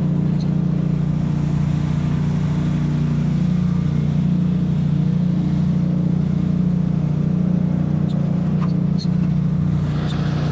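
Small tractor's engine running at a steady pitch, with a few faint clicks about eight to nine seconds in.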